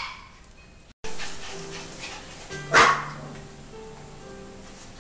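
A puppy's bark fading at the start. After the sound cuts out briefly about a second in, background music plays, with a single sharp puppy bark about three seconds in.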